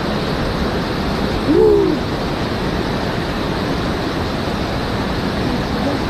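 Steady rushing noise of falling water. About a second and a half in comes one short hoot-like call that rises and falls in pitch.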